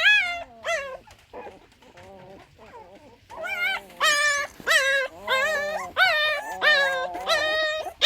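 A litter of newborn puppies crying and whimpering in short, high-pitched squealing cries that rise and fall, several pups overlapping. The cries go faint for a couple of seconds, then come back loud about three seconds in.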